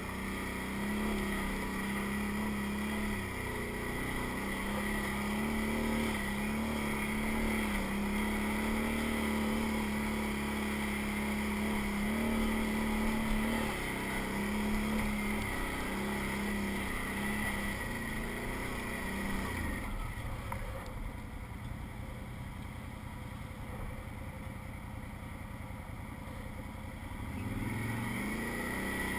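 Can-Am ATV engine running under throttle on a rocky trail, its pitch rising and falling with the throttle. About two-thirds of the way through it drops to a lower, quieter run for several seconds, then revs back up near the end.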